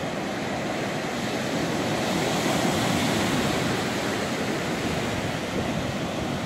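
Small sea waves breaking and washing up a sandy beach: a steady rush of surf that swells slightly a few seconds in.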